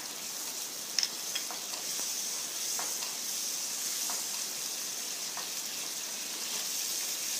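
Onion and cashew paste, with ginger-garlic paste and garam masala, sizzling in oil in a kadai on a low flame while being stirred with a wooden spatula: a steady high hiss with a few faint clicks. The masala is being fried until its raw smell goes.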